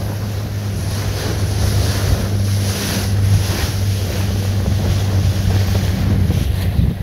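A boat's engine running with a steady low hum, under wind buffeting the microphone and water rushing past the hull.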